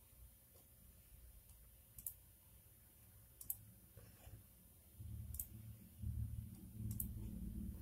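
Four sharp, brief clicks spaced irregularly a second or more apart, over a faint low hum that gets louder about five seconds in.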